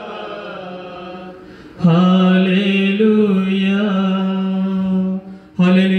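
Liturgical chant: a voice singing long phrases held on a nearly steady note. It is softer at first, comes in louder about two seconds in, and breaks off briefly near the end.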